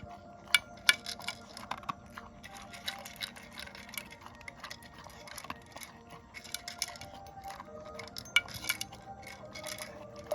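A pet eating from a dish: irregular clicks and clinks of food and teeth against the bowl, a few sharper ones now and then, over faint background music.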